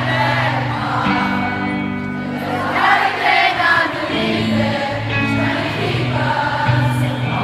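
Live pop-rock band playing, with many voices singing along together over the music.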